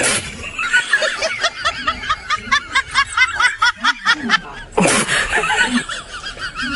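A high-pitched snickering laugh, dubbed in as a comic sound effect, repeating in quick even pulses of about four to five a second. A sudden short burst of noise comes at the start and again about five seconds in.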